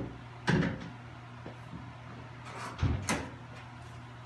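1971 El Camino's steel tailgate being unlatched and lowered, giving a metal clunk about half a second in and a double clunk near three seconds.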